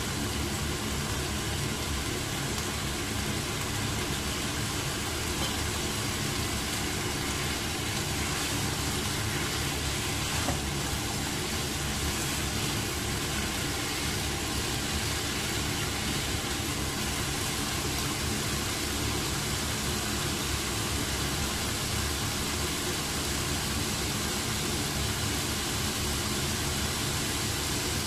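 Steady hiss and low hum of stovetop stir-frying: potato strips, carrots and meat cooking in a nonstick pan. A single brief tap comes about ten seconds in.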